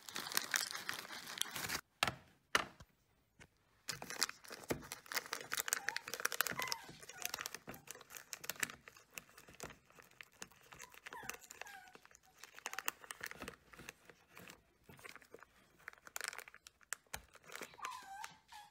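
Clear plastic treat bag crinkling and rustling as a hand rummages in it, in dense irregular crackles with a short pause about two seconds in.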